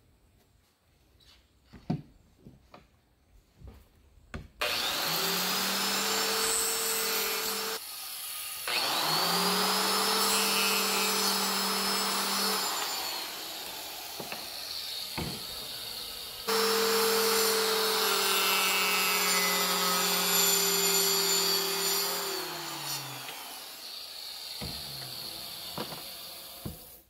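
Small handling clicks, then a Makita 4-3/8-inch trim/mason saw starts and runs with a steady whine while cutting a PVC wall tile. It stops and restarts, runs in three spells, and winds down with a falling pitch near the end.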